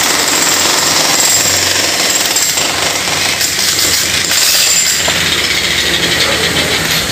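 Jackhammer breaking up concrete: a continuous, rapid hammering.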